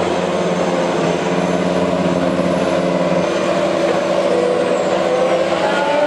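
Formula 1 cars' 1.6-litre turbocharged V6 hybrid engines idling on the starting grid, a steady multi-toned drone. About two-thirds of the way through, one engine's pitch rises as it is revved.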